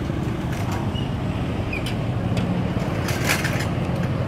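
A steady low rumble with a few short crackles over it; the loudest crackle, about three seconds in, fits plastic shrink-wrap on a pack of water bottles being grabbed.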